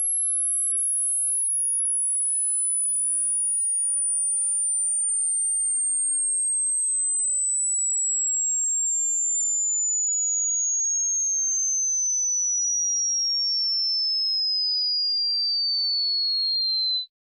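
Pure electronic sine-wave test tone for a hearing test, sweeping slowly and steadily downward in pitch from very high, near the top of human hearing, to a mid-high whistle, at an even level, then cutting off suddenly near the end.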